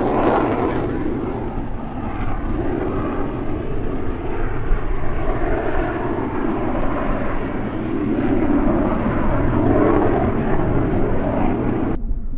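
Airplane engines running as an aircraft moves at the airport: a loud, steady rushing roar that swells and eases, with gusts of wind rumbling on the microphone. The sound cuts off suddenly near the end.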